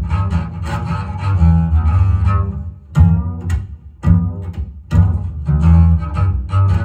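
Jazz recording led by an upright double bass, with strong low bass notes under the band. Around the middle the music breaks into a stop-time passage: short accented hits separated by brief gaps.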